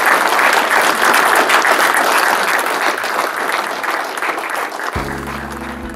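Audience applauding, slowly fading. About five seconds in, music begins with steady held tones.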